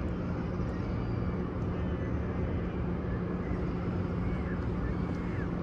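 Steady ambience of a large congregation in an open mosque: a low rumble with a steady hum, and faint scattered voices in the distance.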